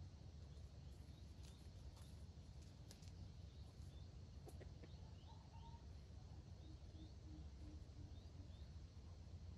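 Near-silent outdoor ambience: faint small-bird chirps repeating over a low steady rumble, with a short run of soft low notes about two-thirds of the way in.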